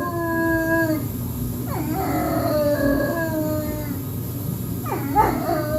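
A dog howling in long, held notes that sag slightly in pitch, with quick sweeping slides between notes about two seconds in and again about five seconds in.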